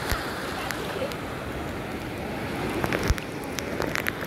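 Shallow sea surf washing around people sitting in the water: a steady rushing of small waves, with a few sharp splashes near the end.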